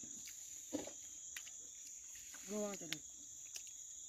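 Steady high-pitched drone of night insects, with a few light clicks of a wooden spoon against a stainless steel bowl while eating and a brief hummed sound from the eater about two and a half seconds in.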